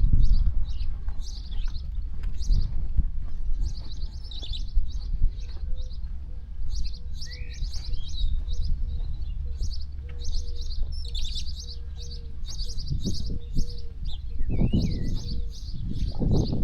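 Small birds chirping in quick, repeated series, over a steady low rumble of wind and sea.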